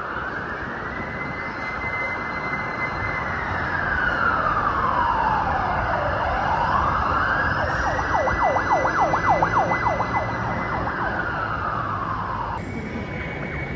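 Fire engine siren on a slow wail, rising, holding high and falling over several seconds. It switches to a rapid yelp for about two seconds in the middle, then goes back to wailing. Traffic noise runs underneath.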